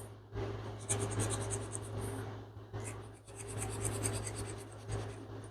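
Foam ink blending tool rubbed over cardstock in quick small strokes, giving a dry, scratchy scrubbing sound in two stretches with a short pause between them.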